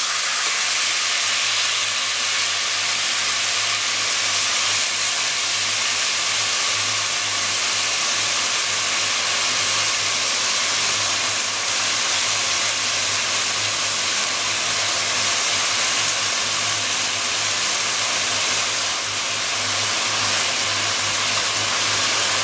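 Chunks of beef searing in hot oil and caramelized sugar in a caldero, a loud steady sizzle. Steam is rising as the meat gives off its water.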